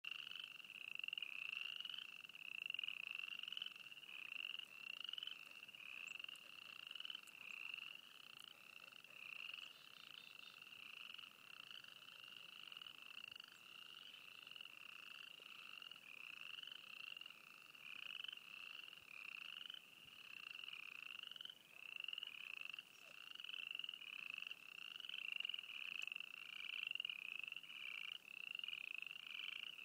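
A faint chorus of frogs: many short rising trilled calls overlapping in a steady run, a couple each second.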